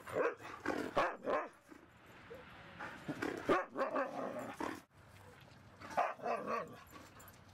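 Siberian huskies barking and growling in rough play, in three bursts: at the start, from about three to five seconds in, and again around six seconds in.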